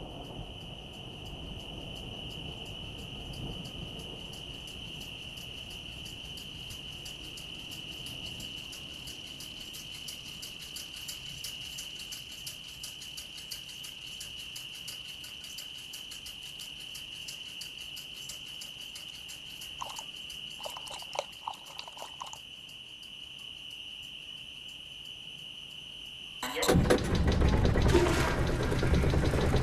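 Crickets chirring in one steady, high trill through the night, with a few brief chirps about two-thirds of the way in. Near the end a sudden loud rushing noise cuts in over them.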